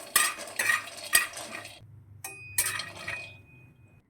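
A metal spatula scraping and stirring nuts being dry-roasted in a kadhai, in strokes about twice a second. About two seconds in there is a sharp metallic clink whose ring lingers for over a second.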